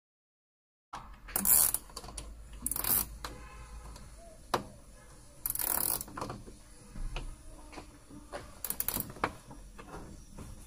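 Irregular handling noise from hands and tools working inside a washing machine: a few short scratchy rasps of plastic and several sharp clicks, one especially sharp click a little before the middle.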